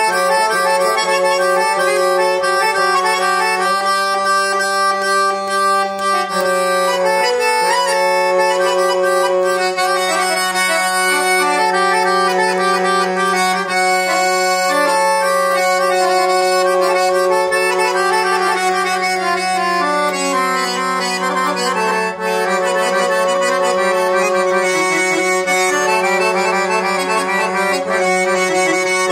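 Piano accordion playing a melody in the segah mode of Azerbaijani music over a steadily held low drone note, with a brief break in the drone about seven seconds in.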